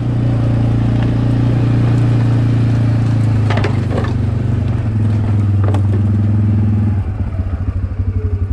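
A heavy vehicle's engine running at a steady speed, with a few metallic clanks around the middle. About seven seconds in, it drops to a slower, lumpy throbbing idle.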